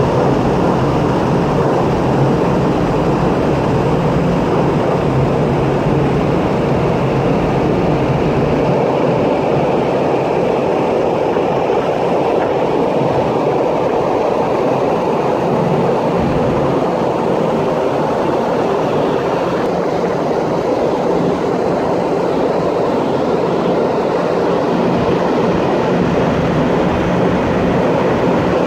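Steady rushing of wind and the ship's wake heard from the open deck of a large ship under way, over a low, even hum from the ship's machinery.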